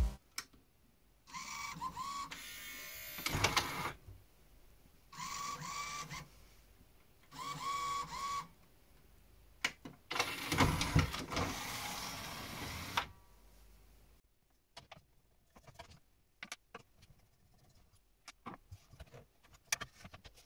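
Pioneer CLD-2950 LaserDisc player's mechanism motor running in four short bursts, each with a high squealing whine that glides upward: the screaming the player makes instead of playing. After that, only light scattered clicks and taps.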